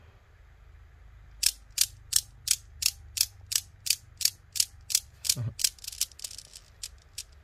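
The metal balls of a seven-ball Newton's cradle clacking together in a regular rhythm of about three sharp clicks a second. The clicks start about a second and a half in, then grow fainter and split into double clicks near the end.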